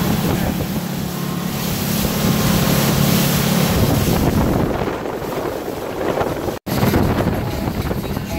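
Motorboat engine droning steadily at cruising speed, with wind buffeting the microphone and water rushing past the hull. The sound drops out for an instant about two-thirds of the way through.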